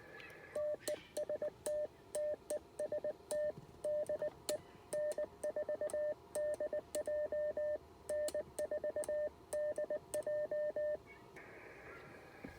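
Morse code (CW) sent on a paddle key and heard as the ICOM IC-706 transceiver's sidetone: a steady mid-pitched beep keyed on and off in dots and dashes, with light clicks at each keying. It stops about a second before the end.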